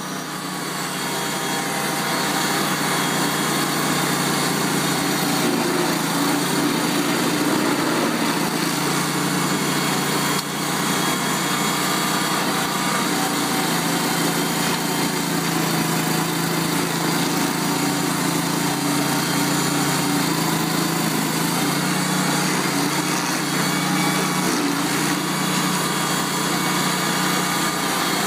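Vermeer SC252 stump grinder running steadily at working speed, its carbide-toothed cutter wheel grinding through soil and roots. The sound rises in over the first couple of seconds and dips briefly once, about ten seconds in.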